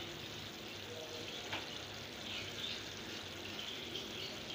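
Goat liver curry simmering in an open frying pan: a soft, steady bubbling and sizzle of the gravy, with a faint tick about a second and a half in.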